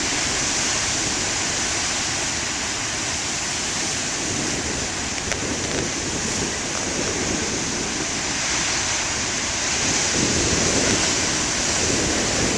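Heavy ocean surf: large waves breaking and washing up the beach in a steady rush, swelling a little louder near the end.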